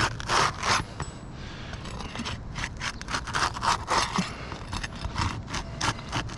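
Asphalt roof shingles being scraped and pried loose to break their sealed tabs: a run of short, irregular scrapes.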